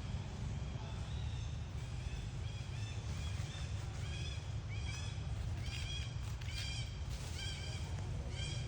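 Baby monkey giving a series of short, high-pitched cries, each rising and falling, faint at first and coming faster and louder from about halfway, over a steady low rumble.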